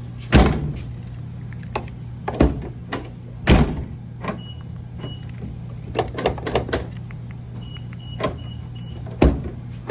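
Toyota FJ Cruiser rear door latch being test-operated: four loud clunks of the latch mechanism, with a run of smaller clicks about six seconds in. A few short high electronic beeps sound midway and near the end, over a steady low hum.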